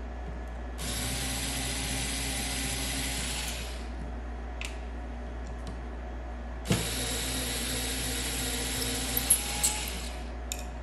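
Small Ryobi cordless screwdriver backing screws out of a battery pack's circuit board: the motor runs twice, each time for about three seconds, with a sharp click as the second run starts and a few sharp ticks near its end.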